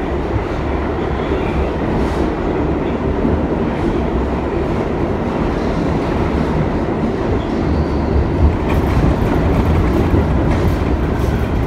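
Subway train running along the track: a steady rumble of wheels on rail with clickety-clack from the rail joints, and a few sharper clacks about two-thirds of the way through.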